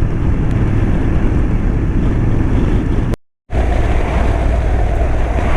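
Motorcycle under way: steady engine and wind rush on a helmet-mounted microphone, broken by a brief complete dropout a little after three seconds in.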